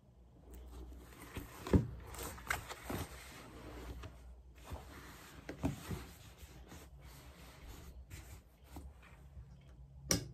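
A paperback book being handled on a desk: knocks as it is set down and opened, with rubbing and rustling of its pages in between. The loudest knock comes about two seconds in, with a last sharp one near the end.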